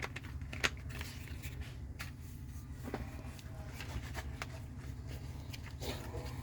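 Small clicks and taps of tools and parts being handled during soldering work on a circuit board, over a steady low hum.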